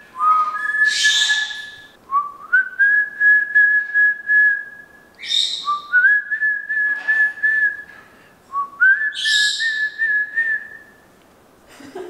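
A person whistling to a parrot in about four phrases. Each phrase is a short lower note stepping up into a long, steady held note. Short breathy bursts fall between phrases.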